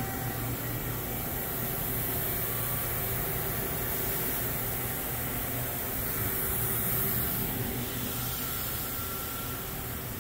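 Tongtai TMV-510T CNC vertical mill running a machining program: a steady machine hum with faint steady tones. A brighter hiss comes in about four seconds in and fades by about eight seconds.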